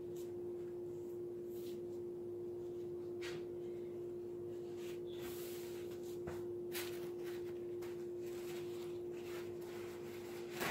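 A steady low hum, one unchanging tone, under faint rustling and a few light clicks of handling, the sharpest about six seconds in.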